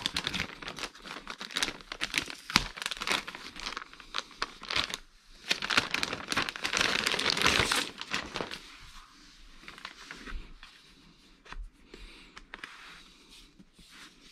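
Clear plastic protective sleeve crinkling and tearing as it is peeled and pulled off a new laptop, loudest about six to eight seconds in. After that it settles into quieter handling with a few light clicks.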